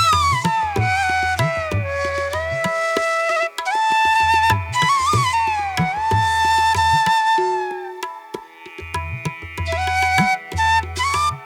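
Background music: a flute melody of held notes that slide up and down, over a hand-drum rhythm.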